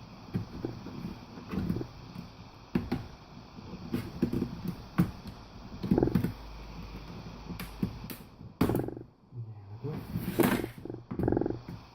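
Plastic laptop case being pried apart: irregular creaking and scraping with clicks of the snap-fit clips, and a few louder sharp snaps in the last third as clips let go.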